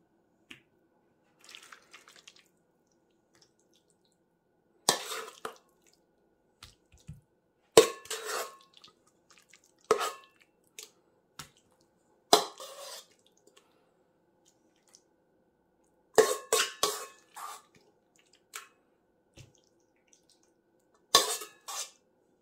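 A spoon clinking and knocking against a stainless steel mixing bowl while pasty filling is scooped out and tapped off, in six short bouts a few seconds apart.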